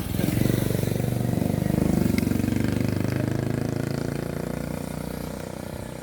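Engine of a passing motor vehicle running with a fast, even pulse, loudest about two seconds in and then slowly fading away.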